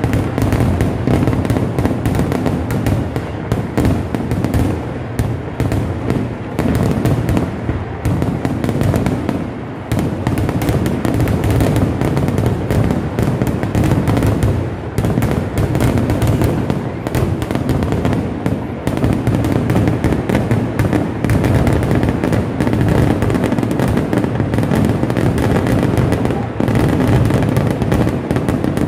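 Kerala temple-festival fireworks (vedikkettu) in full barrage: loud blasts and crackling bursts following so closely that they run together into one continuous din.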